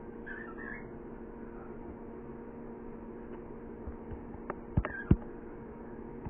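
A pet bird gives a brief chirp about half a second in, then three sharp clicks or taps come close together near the end, the last the loudest, over a steady low hum.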